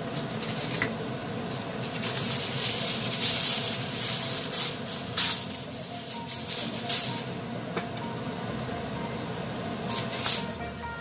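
Aluminium kitchen foil rustling and crinkling in bursts as it is pulled off the roll and handled. It comes in several bursts through the middle and once more near the end as the sheet is spread flat.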